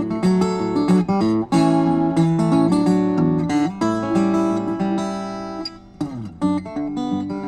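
Solo steel-string acoustic guitar playing an instrumental piece, strummed chords and picked melody notes, with a short lull and a sliding bass note about six seconds in.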